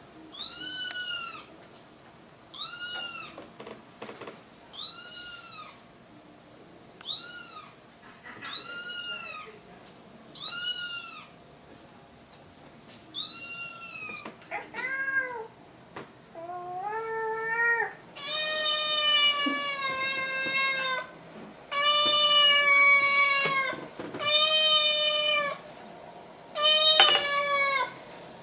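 Kitten meowing repeatedly: short, high meows about every two seconds, then longer, lower, drawn-out meows in the second half.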